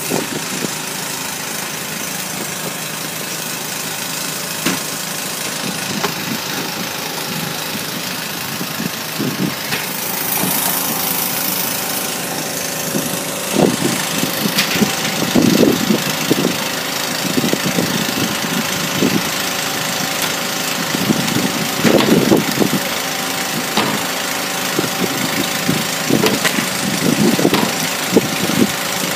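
Fishing boat's engine running steadily, with irregular short, louder sounds over it from about halfway through.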